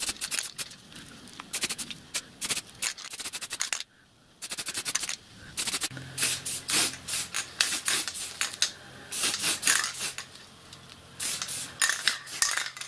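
Aerosol spray-paint can being shaken in repeated bursts, its mixing ball rattling quickly inside, with short sprays of paint between shakes.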